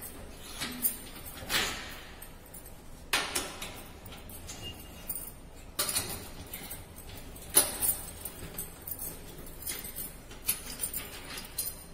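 Bangles jingling and clinking on and off as hands work the knobs and valves on the lid of a stainless-steel vertical autoclave, with a few sharp metallic clicks.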